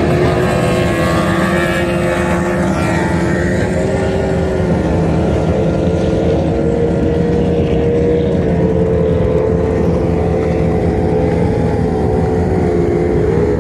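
Several speedboat engines running at high speed together. Their steady drones sit at slightly different pitches and drift a little up and down over a heavy low rumble.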